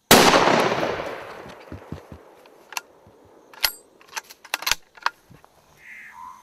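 A single hunting-rifle shot, very loud and sudden, with a long echo fading over about a second and a half. It is followed by a few sharp clicks and knocks.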